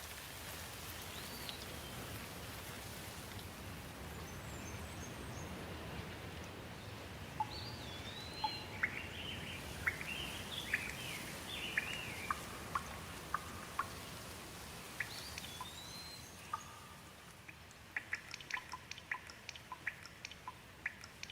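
Steady rain hiss with birds calling over it: a few whistled, rising-and-falling chirps, thickest through the middle. Near the end comes a quick run of short, sharp ticks.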